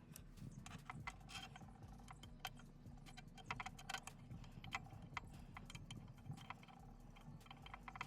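Faint, irregular metallic clicks and clinks of nuts and bolts being handled and fitted by hand.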